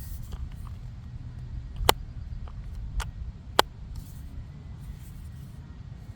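Three sharp clicks, about a second apart, from small hard objects being handled, over a steady low rumble.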